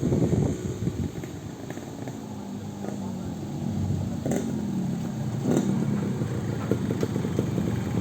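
A motorcycle engine running at low revs, its pitch drifting slightly up and down, with a couple of sharp clicks about halfway through.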